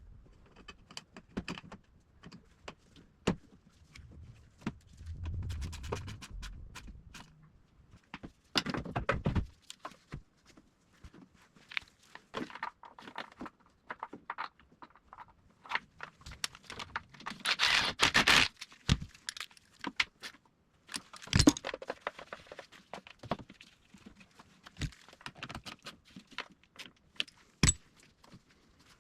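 Scattered clicks, knocks and scrapes of an air filter and a car battery being refitted in an engine bay, with a louder scrape lasting about a second past the middle.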